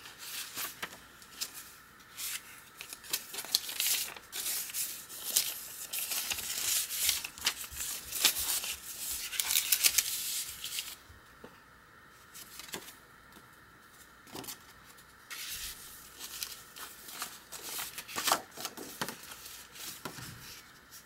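Paper pages of a handmade journal rustling and crinkling as they are turned and lifted by hand, in quick swishes. Busy for the first half, then only a few separate page turns after about eleven seconds in.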